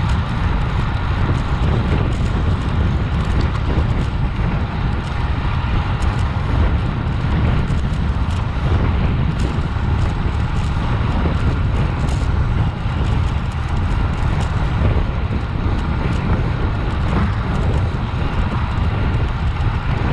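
Wind buffeting the microphone of a camera on a moving road bicycle: a steady, low rumble.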